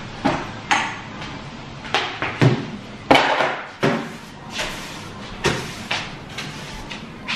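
A string of about a dozen irregular knocks and clatters, with one louder knock about three seconds in, from household things being handled during kitchen cleaning.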